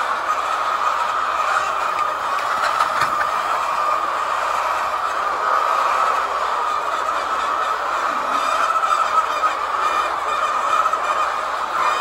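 Steady, dense din of a large flock of laying hens clucking and calling together, with a few light clicks here and there.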